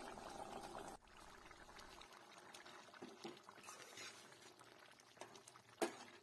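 Faint wet stirring and bubbling of a thick chicken and drumstick curry simmering in a kadai as a ladle turns it over, with one sharp knock of the ladle against the pan near the end.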